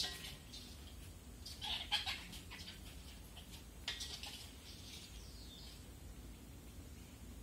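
Short, scratchy bird calls, three of them about two seconds apart, the middle one the loudest.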